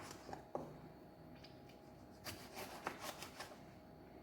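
Kitchen knife slicing through a tomato and tapping the cutting board: a couple of faint knocks near the start, then a cluster of several quick knocks between about two and three and a half seconds in.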